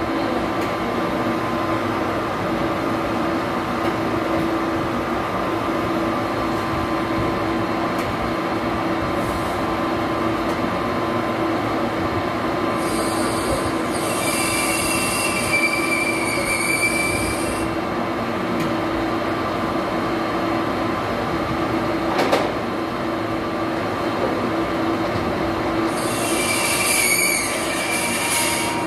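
A metal lathe runs with a steady hum as it turns a fountain-nozzle part. A high-pitched squeal from the cutting tool on the workpiece comes twice, for a few seconds each time, about halfway through and near the end. A single sharp click sounds between the two squeals.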